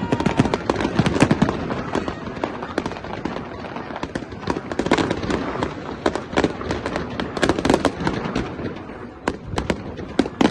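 Fireworks going off: many bangs and crackling pops in quick, irregular succession.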